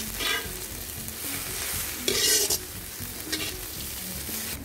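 Vegetables and peanuts sizzling in hot oil in a large kadai while a perforated metal ladle stirs them: three stirring strokes against the pan, the loudest about two seconds in.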